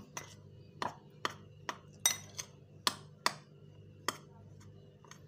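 Metal spoon clinking against the side of a glass bowl while stirring dry gram flour and spices, about nine irregular clinks, the stirring itself barely heard between them.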